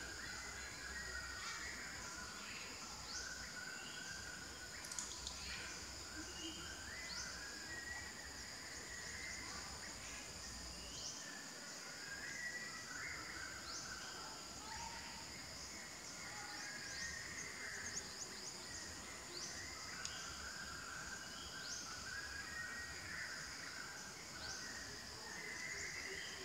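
Forest ambience: a steady, high-pitched insect drone with short bird chirps and calls scattered throughout.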